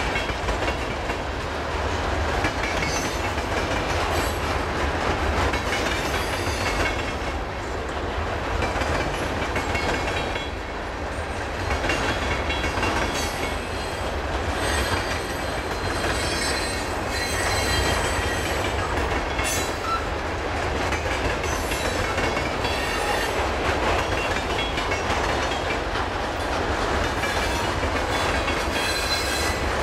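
Freight train's cars rolling past close by: a steady rumble of steel wheels on rail, with clacking and a thin high wheel squeal that comes and goes.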